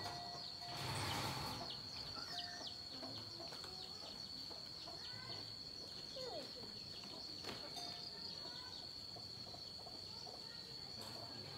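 Rural outdoor ambience: a steady high-pitched drone throughout, with scattered short bird chirps and chickens clucking. There is a brief rush of noise about a second in.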